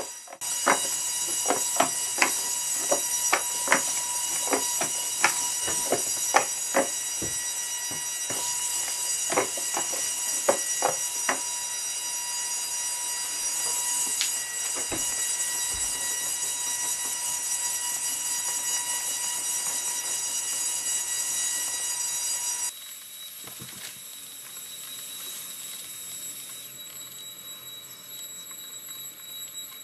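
Hexapod robot's servos whining with a steady high-pitched hum of several tones as it moves a pen over paper, with sharp ticks every half second or so through the first half. About 23 seconds in the sound drops abruptly to a quieter, thinner hum.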